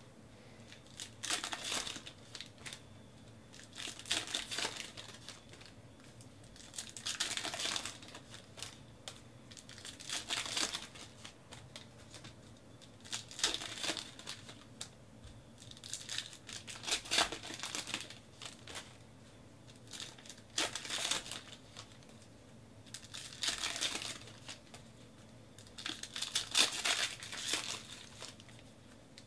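2018 Panini Classics football card pack wrappers being torn open and crinkled by hand, in short bursts every few seconds.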